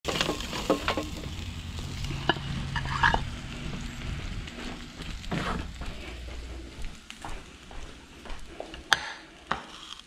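A porterhouse steak sizzling over a charcoal grill, with metallic clicks and scrapes from a long spatula against the grate as the steak is lifted off. The second half is quieter, with scattered knocks and clinks of handling, and a sharp clink about nine seconds in.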